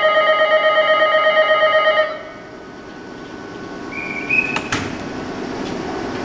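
Electric platform bell ringing with a fast, even trill for about two seconds, then stopping. A brief high tone follows a couple of seconds later, then a sharp knock.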